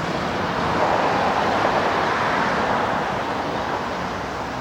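Road traffic going by, a steady rush of tyres and engines that swells toward the middle and eases off toward the end as a vehicle passes.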